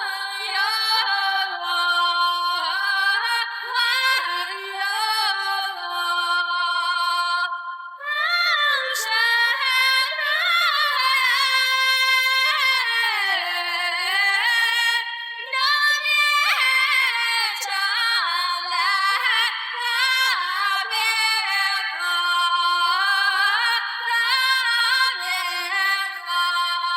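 Recorded song with a woman singing high, sliding melodic lines throughout. The sound is thin, with nothing in the bass.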